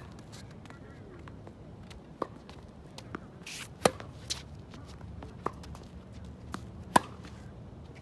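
Tennis rally on a hard court: sharp pops of rackets striking the ball and the ball bouncing, coming every second or so, the loudest about four and seven seconds in.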